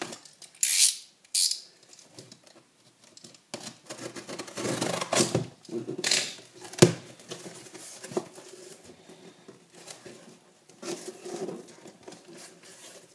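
Packing tape on a cardboard box being slit with the point of a pair of scissors, two short hissing slits about a second in. Scraping and rustling of cardboard follow, then a single sharp knock a little past halfway, the loudest sound. Softer handling sounds come as the box flaps are worked open.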